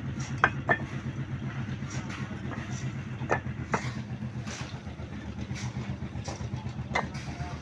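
A vehicle's engine idling with a steady, pulsing hum, while bricks clink and knock against each other several times as they are unloaded by hand.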